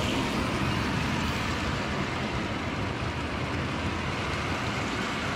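O gauge tinplate model freight train of tank cars running past on metal track, its wheels and motor giving a steady rattle and rumble.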